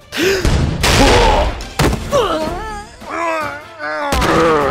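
Animated-battle sound effects: loud crashing impact noises mixed with several short cries that slide up and down in pitch, over music.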